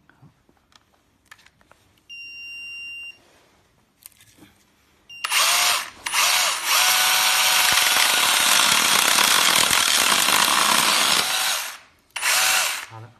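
Kingson battery-powered mini chainsaw running: after an electronic beep and a few clicks, the motor spins the chain up and runs steadily for about six seconds, then gives two short bursts near the end.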